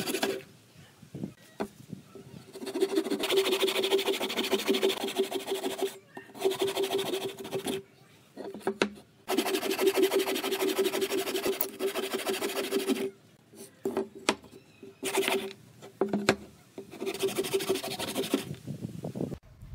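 An electric power tool working wood, its motor running in repeated bursts of one to four seconds with short pauses between, and a few sharp clicks in the gaps.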